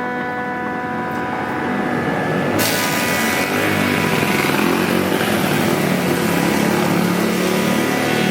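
A 41 cm Chang Iron wood planer running with a steady machine hum; about two and a half seconds in, wood starts going through the cutter head and a loud, steady planing noise takes over.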